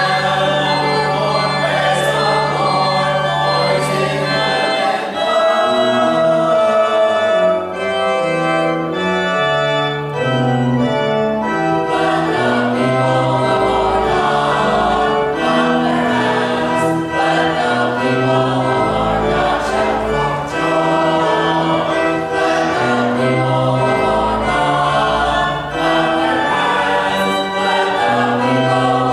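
A small choir of eight, two voices to a part, singing an anthem with a Wicks pipe organ accompanying. The organ holds one low bass note for about the first five seconds, then its bass moves from note to note under the voices.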